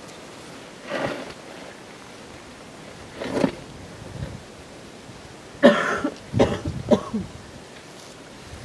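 A person coughing: single coughs about one second and three and a half seconds in, then a louder run of coughs around six to seven seconds in.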